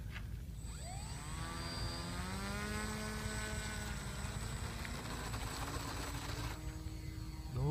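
Electric motor and propeller of a foam RC model airplane spinning up for takeoff: a whine that rises in pitch about half a second in, then holds nearly steady with a thin high whistle above it that stops near the end.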